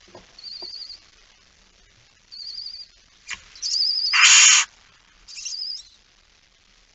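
Barn owls in a nest box: short, high, wavering chirps repeated four times, typical of young barn owl chicks. About three seconds in comes a sharp click, then a loud half-second hiss.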